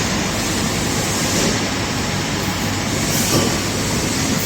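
TRAUB TNM 28 CNC lathe running: a steady, even machine noise with a low hum underneath.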